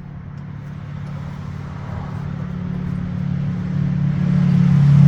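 A vehicle engine running at a steady pitch, growing steadily louder.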